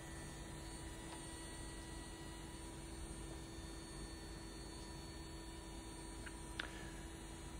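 Faint steady hum of a Boeing 737 NG's CFM56-7B turbofan running at ground idle, with a constant low drone tone. One small click about six and a half seconds in.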